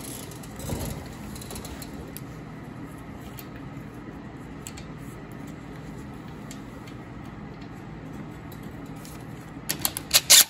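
Cordless impact driver hammering a bolt home on a tractor's brake pin lock, in a few short rattling bursts near the end. Before that, faint clicks of the bolt being started by hand over a low steady hum.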